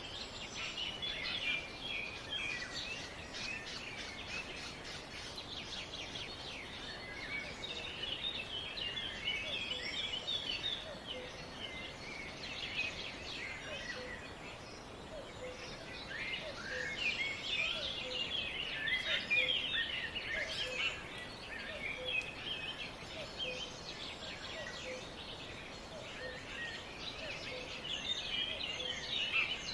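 A chorus of several small songbirds chirping and trilling over each other, with a steady background hiss. A faint low note repeats about once a second from about a third of the way in.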